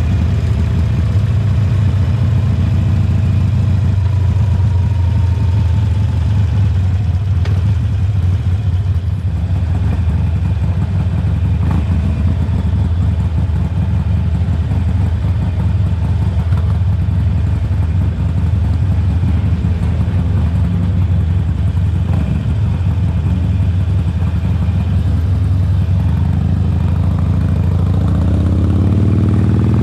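2020 Harley-Davidson Forty-Eight's air-cooled 1200 cc V-twin running through Khrome Werks slip-on mufflers at steady low road speed, then revs rising as it pulls away near the end.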